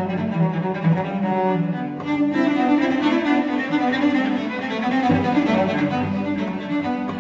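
Cellos played with the bow as a layered ensemble, one cellist recording several parts. A lower part moves in short repeated notes, and about two seconds in a higher cello line enters over it.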